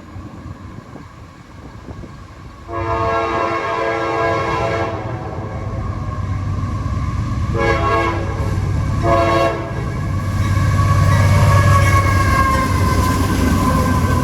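Freight locomotive's multi-chime air horn: one long blast about three seconds in, then two short blasts a few seconds later. After that comes the louder, steady rumble of the approaching CSX freight's locomotives, with a whine that slowly falls in pitch.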